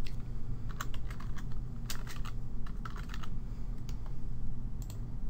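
Typing on a computer keyboard: irregular key clicks, a few a second, over a low steady hum.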